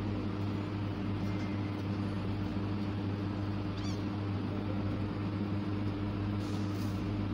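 A steady low hum throughout, with a kitten giving a faint, short, high mew about four seconds in.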